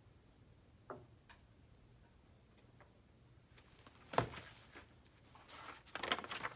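A few faint clicks, then paper rustling with a sharp soft knock about four seconds in and more rustling near the end: the pages of a picture book being handled and turned.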